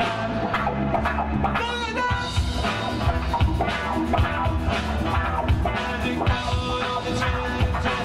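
Live rock band playing an instrumental passage of a funk-blues song, with drum kit and electric guitars.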